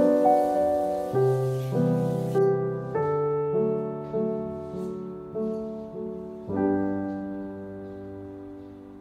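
Gentle background piano music: single notes and chords that each strike and fade, ending on a held chord about six and a half seconds in that slowly dies away.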